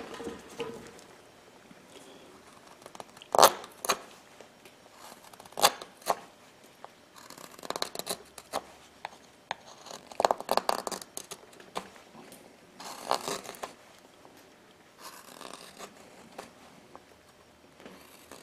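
Hand gouge cutting into a small wooden carving: a few single sharp slicing cuts first, then longer runs of quick scraping strokes as the chips are pared off.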